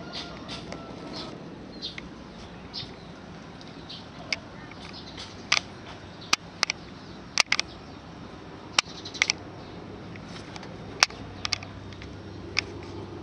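Outdoor condenser unit of a 1990s National mini-split air conditioner, running with a steady low hum that deepens and strengthens about ten seconds in. Short sharp high chirps sound over it at irregular intervals, about a dozen of them.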